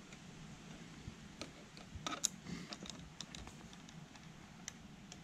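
Faint, scattered clicks and clinks of zipline gear being handled, carabiner clips and a trolley going onto the cable, with a small cluster of clicks about two seconds in.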